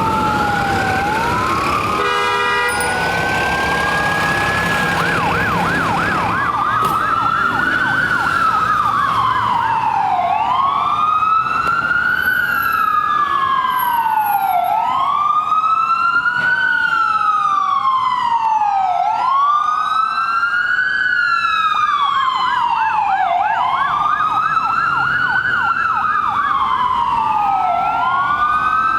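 Electronic ambulance siren sounding a wail, slow sweeps rising and falling every few seconds, with short bursts of the rapid yelp warble cut in between.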